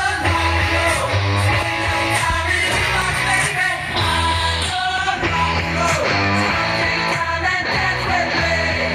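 A rock song with a singing voice, guitar and bass notes, received as a radio broadcast and played through the speakers of a 1992 Sony FH-B177 mini hi-fi system.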